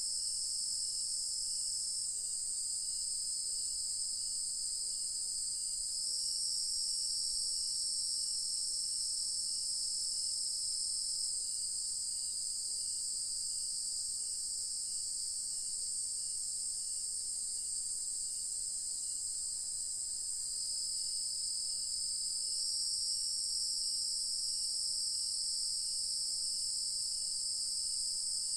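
Nighttime chorus of crickets and other insects: a steady high-pitched trill that shifts slightly in pitch every few seconds, with a fainter, lower chirp repeating about twice a second.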